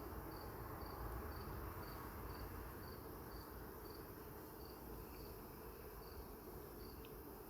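A cricket chirping steadily, one short high chirp about twice a second, faint over low background noise.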